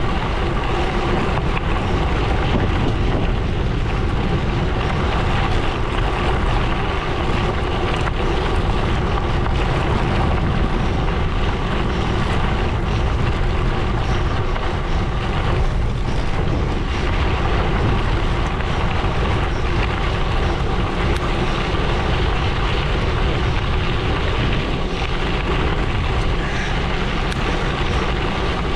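Gravel bike tyres rolling over a gravel road, with a steady, unbroken rumble and wind noise on the microphone.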